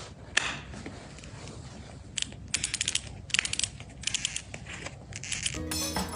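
Joints cracking during chiropractic adjustments: sharp pops, one alone and then several quick clusters of crackling clicks. Music starts near the end.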